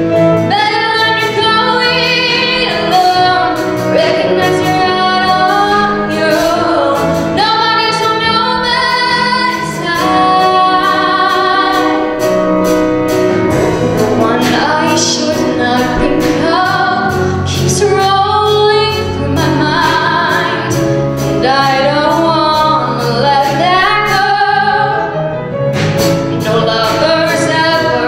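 A woman singing a musical-theatre or pop song into a handheld microphone over instrumental accompaniment, with long held and gliding notes.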